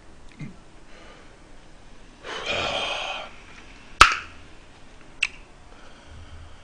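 A man breathing out heavily for about a second, then a sharp click a moment later and a fainter click about a second after that.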